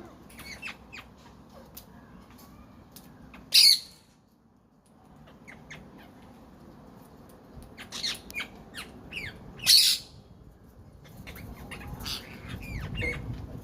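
Pet parrot squawking: two loud, sharp squawks, one about three and a half seconds in and one near ten seconds, among short chirps and clicks.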